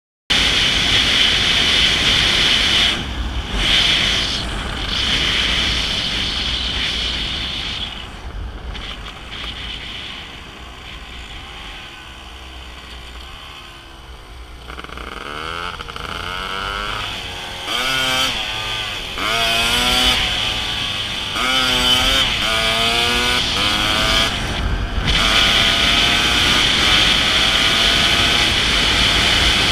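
Kawasaki KDX200 two-stroke single-cylinder dirt bike engine heard from on the bike, with heavy wind rush on the microphone. It runs quieter for several seconds in the middle, then accelerates through the gears, the pitch climbing and dropping back with each shift.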